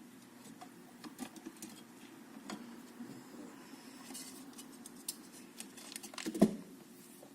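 Small clicks and taps of parts and tools being handled on a workbench, with one louder knock about six and a half seconds in, over a low steady hum.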